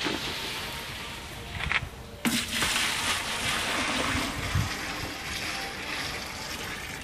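Water splashing as it is poured out of a plastic bucket onto the ground. The steady rush of water begins suddenly about two seconds in.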